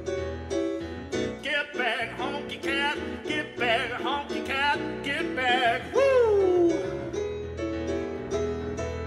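A keyboard plays rhythmic piano chords while a man sings wavering ad-lib notes over them from about a second and a half in. The singing ends in a long note that falls in pitch about six seconds in, and the piano carries on alone.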